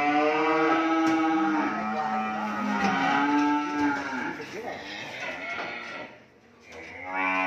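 Cattle mooing at a livestock truck being loaded: several long, overlapping moos over the first few seconds, a brief lull, then another moo starting near the end.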